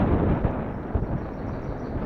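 Wind buffeting the microphone of an action camera on a moving recumbent bicycle: an uneven low rumble with irregular thumps, over the rolling noise of the bike on pavement.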